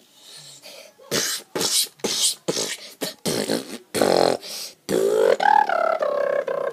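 A person making vocal sound effects with the mouth: a quick string of short hissing, spitting bursts, then from about five seconds in a long pitched growling note that bends up and down.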